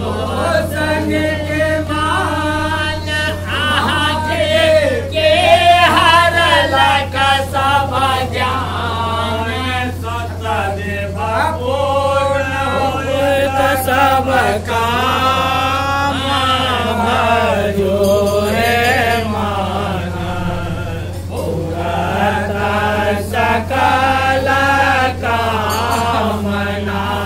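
Voices chanting a Maithili nachari, a devotional song to Shiva, in a sing-song melody that rises and falls, with a steady low hum underneath.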